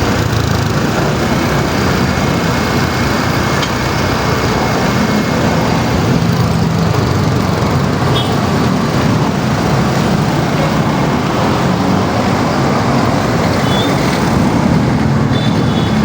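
Steady, loud road traffic noise, with heavy vehicle engines running.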